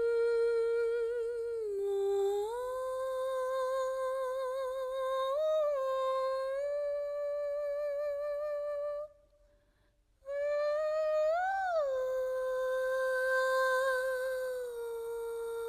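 A high voice humming a slow wordless melody in long held notes with vibrato and smooth slides between them, breaking off for about a second near the middle before carrying on.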